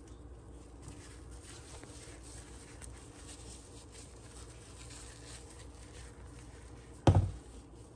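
Faint rubbing and rustling of a Clorox disinfecting wipe over plastic spice shakers, then a single loud thump about seven seconds in.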